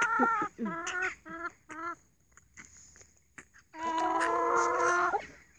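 Hens calling close to the microphone: a held call at the start and several short calls in the first two seconds, then a quiet gap with a few light taps, then one long drawn-out call lasting over a second near the end.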